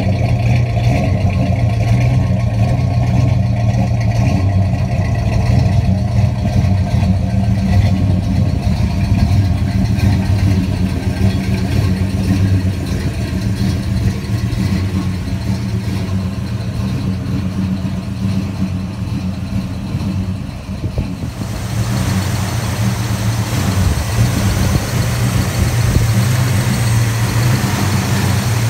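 1970 Pontiac GTO Judge's V8 idling steadily, a low even rumble from the dual exhaust. About 21 seconds in the sound turns brighter and hissier, heard from the open engine bay.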